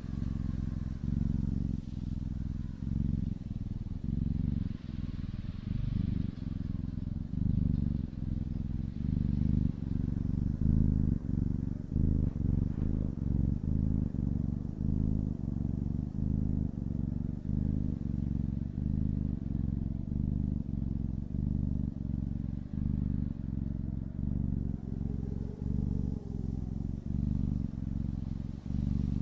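A cat purring: a low rumble that pulses evenly and keeps on without a break.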